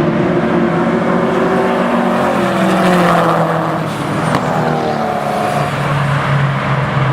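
Car engines on a race track: a steady engine drone throughout, and a car passing by about midway, its engine note dropping as it goes past.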